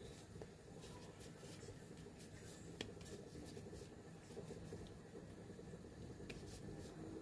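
Faint, steady low hum of a quiet kitchen with a few light, sharp clicks and taps, the clearest just under three seconds in and another after six seconds.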